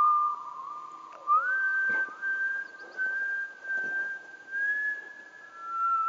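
A person whistling a slow, wavering tune. A low held note glides up about a second in, then short notes at the higher pitch repeat about once a second.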